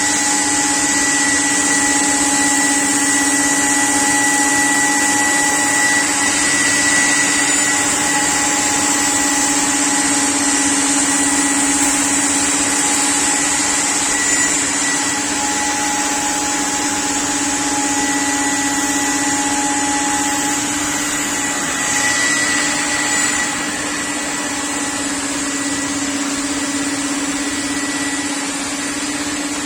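CNC panel-cutting router running steadily: a constant hum with a high whine over a broad rushing noise.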